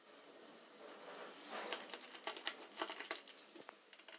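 Hex key turning a 5 mm Allen bolt into a motorcycle gearshift drum: a run of faint metallic clicks and ticks, busiest from about one and a half to three seconds in.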